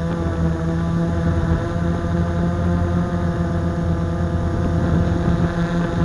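Blade 350 QX quadcopter's four brushless motors and propellers running with a steady, close-up hum, picked up by the camera mounted on its own airframe while it holds a hover.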